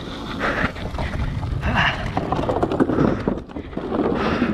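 Scott Scale 970 hardtail mountain bike riding down a dirt trail: tyre rumble over the ground with quick rattles and clicks from the bike, and wind buffeting the microphone.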